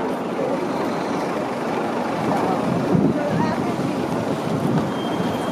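Busy city street ambience: a steady wash of traffic noise mixed with the voices of passing people.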